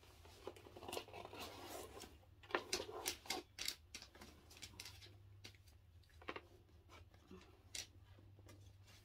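Gift packaging being handled and unwrapped: tissue paper rustling and crinkling, with irregular sharp clicks and taps from the box, busiest in the first few seconds and sparser later.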